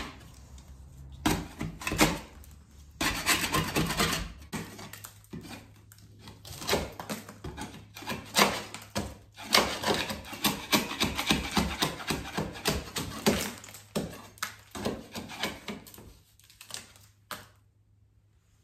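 Metal-bladed scraper scraping and chipping dried construction adhesive off a wall in quick, irregular strokes. The scraping stops near the end.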